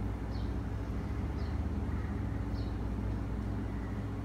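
Steady low rumble of outdoor background noise during a thunderstorm, with a few faint short high chirps about a second apart.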